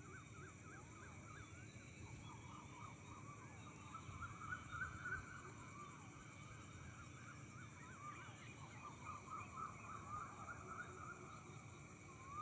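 Several birds chirping in a faint chorus, many quick up-and-down notes overlapping, with a louder single call right at the end.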